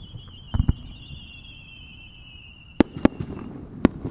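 Aerial firework shells going up with a high whistle that slides slowly down in pitch for about three seconds, then bursting with sharp bangs, three in under a second and a half near the end. There are two low thumps early on.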